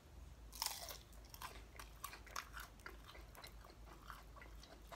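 A bite into a crispy deep-fried lumpia (Filipino spring roll), the wrapper crunching sharply about half a second in, followed by chewing with many small crisp crackles.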